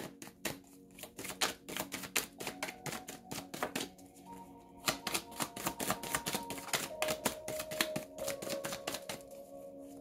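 A deck of tarot cards shuffled by hand: rapid, irregular runs of papery clicks with brief pauses, over soft background music of held tones.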